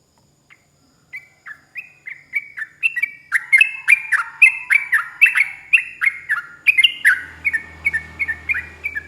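Yellow-vented bulbul (trucukan) singing a long, rapid run of short, bright down-slurred notes. It starts about a second in and grows louder and denser, the notes overlapping from about three seconds in.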